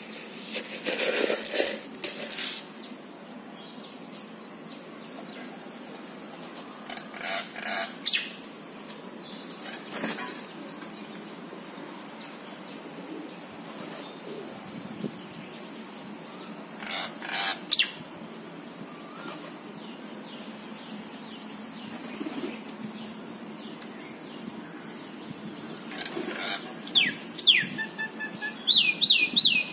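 House crows on a balcony railing: wings flapping and short harsh bursts at intervals, then a quick run of high, falling chirps near the end.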